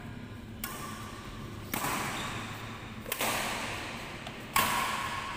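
Badminton rackets striking a shuttlecock in a rally: four sharp hits, roughly one every second and a bit, each echoing in the hall, the last one the loudest.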